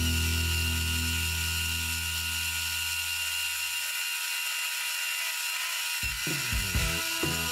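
Mini metal lathe running with a steady high whine as it turns a steel cam disc. Background music fades out over the first few seconds, and a rhythmic pattern of low pulses starts about six seconds in.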